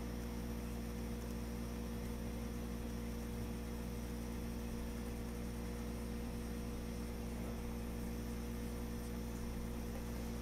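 Steady electrical mains hum: a low buzz with a few higher overtones, holding an even level with nothing else standing out.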